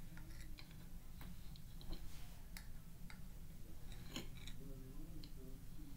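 Metal spoon clicking and scraping in a glass measuring cup of dry cornstarch: scattered light ticks, the sharpest about four seconds in.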